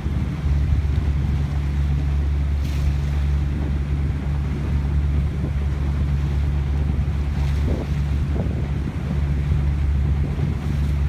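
Wind buffeting the microphone over a steady low drone from a motorboat engine, with water splashing on the hull.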